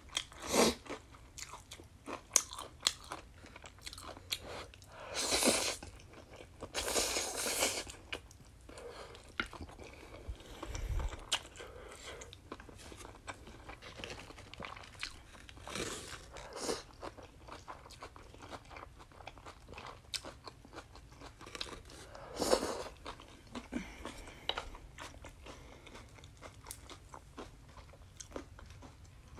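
A person biting into and chewing fried chicken and spicy noodles: many small crunching clicks, with louder, longer noisy bursts about five, seven and twenty-two seconds in.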